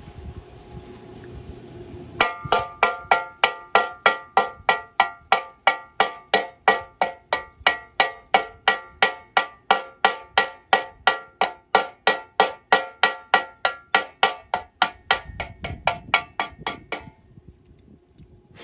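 A hammer striking steel in a quick, even rhythm of about three blows a second, each blow ringing at the same metallic pitches; it starts about two seconds in and stops a little before the end.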